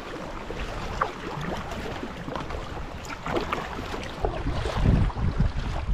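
Kayak paddle strokes: the blades dipping and pulling through calm sea water, with splashing and dripping. From about four seconds in, wind buffets the microphone in heavy low gusts, the loudest sound.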